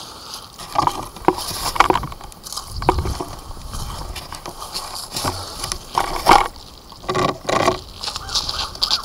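Irregular knocks, bumps and scrapes of a Syma X8G quadcopter's body being handled, turned over and set down in grass, picked up close to its onboard camera's microphone.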